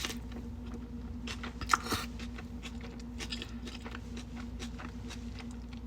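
Close-up chewing of a burger: a run of small wet mouth clicks and smacks, a little louder about two seconds in, over a steady low hum.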